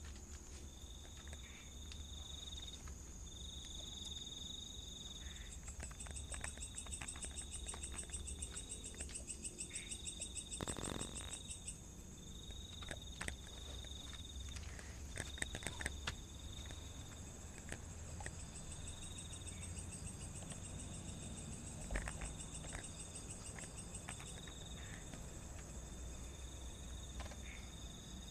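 Night insects such as crickets chirping: a trill about a second long repeating every second or two, under a faster, higher pulsing buzz. Scattered faint clicks and a brief rustle come through, about eleven seconds in.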